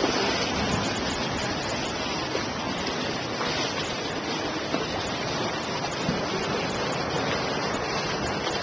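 Sea surf washing and breaking among large shoreline boulders: a steady rushing of water with no clear separate strikes.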